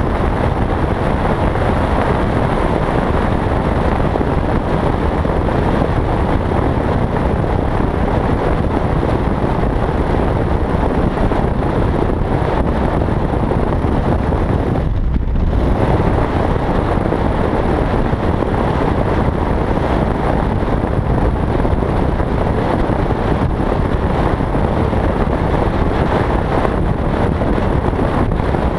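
Wind rushing over a helmet-mounted GoPro at road speed, with the Yamaha XT660Z Ténéré's single-cylinder engine running underneath. The noise thins briefly about halfway through.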